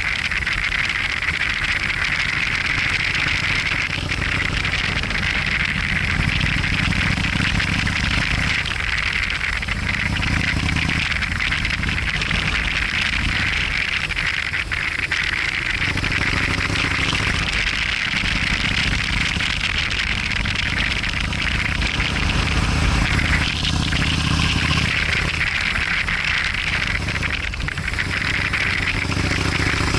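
Motorcycle engine running under way, its note rising and falling with the throttle through a series of bends, over a steady rush of wind and road noise.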